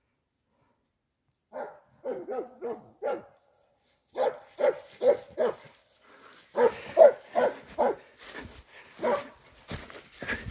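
Hunting dog baying a wild boar: runs of quick, sharp barks, starting about a second and a half in, as the dog holds the boar at bay.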